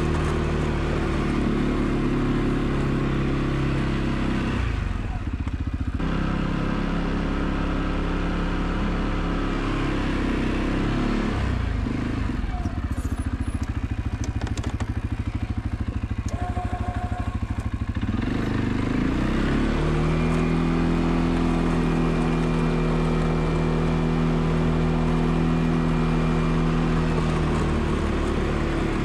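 ATV engine running while plowing snow, easing off to a low, evenly pulsing idle in the middle and then speeding back up to a steady higher pitch for the rest.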